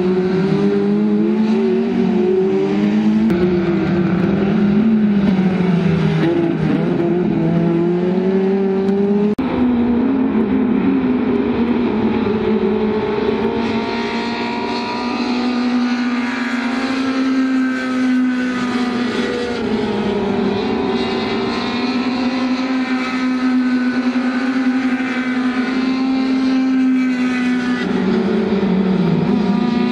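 Racing car engines running hard, several at once, their pitch rising and falling as the cars brake, change gear and accelerate through the corners. There is an abrupt change about a third of the way in, after which one engine note holds fairly steady for a long stretch before bending again near the end.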